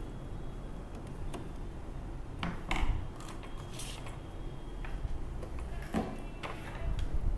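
Scattered light clicks and knocks from hands handling things, with louder knocks about two and a half seconds in and again near the end, over a steady low hum.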